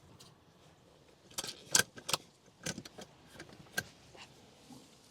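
Car seat base's stability leg being lowered and set in place: a handful of separate sharp plastic-and-metal clicks and knocks, the loudest about two seconds in.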